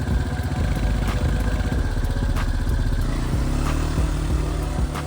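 Quad (ATV) engine running while riding a rough trail, with a few sharp knocks and clatter; about three seconds in the engine note settles to a steadier, lower drone.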